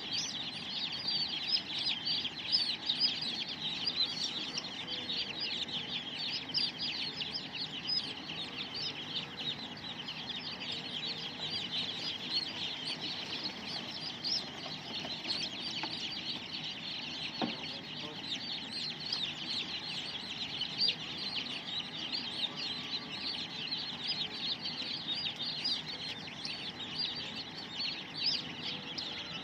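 A crowd of two-day-old chicks peeping continuously, a dense chorus of overlapping high cheeps.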